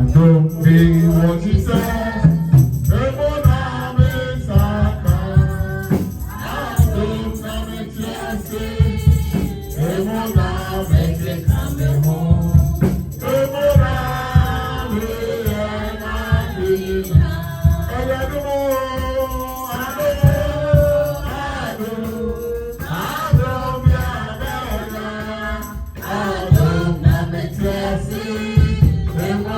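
Gospel worship music: voices singing together over a band with a steady beat and rattling hand percussion.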